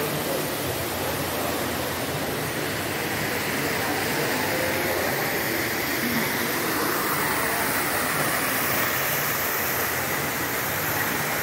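Indoor shopping-mall ambience: a steady, even rushing noise, like ventilation and distant crowd murmur, with no distinct events.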